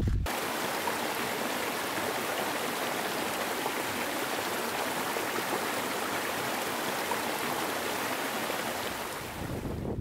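Steady rush of flowing water, an even hiss without deep rumble, dipping slightly near the end.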